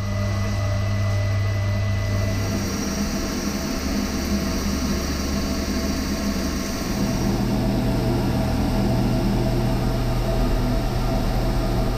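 CNC lathe OD turning a 6061-T6 aluminium bar: the spindle and machine run with a steady hum that shifts pitch about three seconds in and again about seven seconds in.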